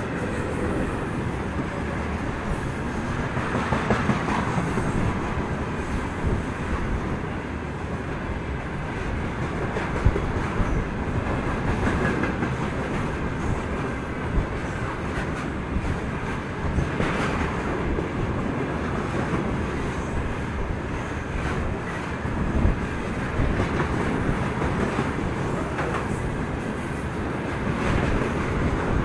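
Freight train of railway tank cars rolling past close by: a steady rumble of wheels on rails with repeated clattering over the rail joints.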